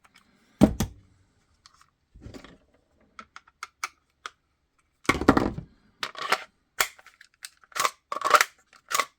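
Hard clicks, taps and knocks from handling a Kydex holster and tools on a workbench. There is a single knock near the start and a busier run of clatter in the second half.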